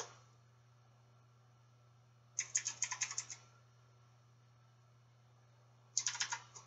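Computer keyboard typing in two quick runs of keystrokes, one about two and a half seconds in and a shorter one near the end, with a single key click at the start, over a faint steady low hum.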